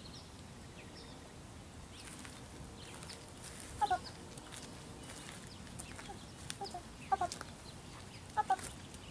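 A few short animal calls in quick clusters, about four, seven and eight and a half seconds in, over a quiet outdoor background.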